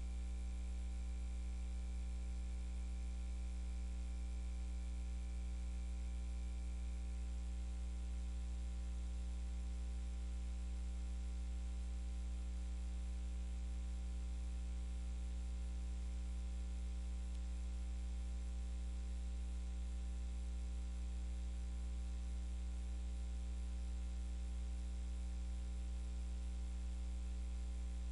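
Steady electrical hum and buzz with a low hiss, unchanging throughout; a faint high tone drops out about seven seconds in.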